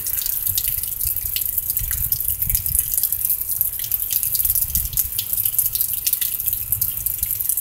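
Rain falling and dripping, many separate drops ticking over a steady hiss, with a low rumble underneath; the rain is easing off after a downpour.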